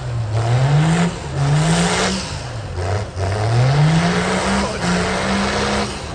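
Lifted diesel truck with a hood stack revving hard for a burnout. The engine climbs and drops back three times, then holds at high revs near the end, over a steady rush of noise.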